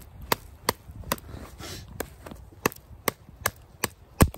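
Fixed-blade knife chopping into a thin, frozen, wet sapling about a quarter inch thick: about ten sharp chops, two or three a second, with a short pause in the middle. The loudest chop comes near the end.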